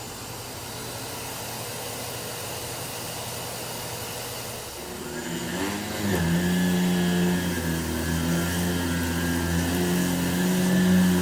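Miele C2 canister vacuum running with its SEB 228 electric power nozzle, cleaning carpet. About halfway through the sound grows louder and a steady lower hum joins in.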